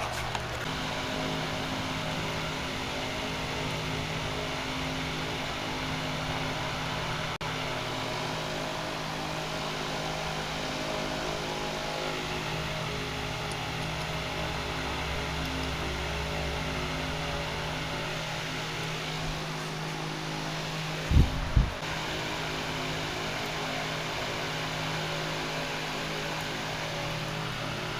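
Steady machine hum with fixed low tones and an even hiss, broken by two short low thumps about three-quarters of the way through.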